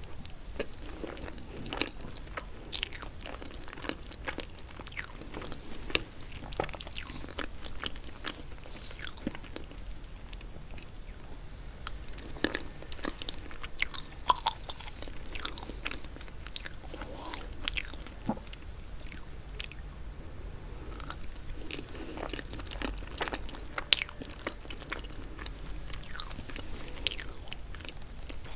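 Close-miked eating sounds of a person chewing and biting chocolate cake, with many short, irregular mouth clicks and smacks.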